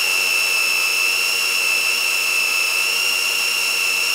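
Countertop blender motor running steadily at full speed with a high whine, grinding raw ground-pork meatball paste with salt and white pepper.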